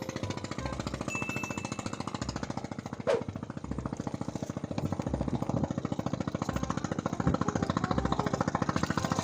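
A small engine chugging with a fast, even beat, growing louder towards the end, with a short sharp knock about three seconds in.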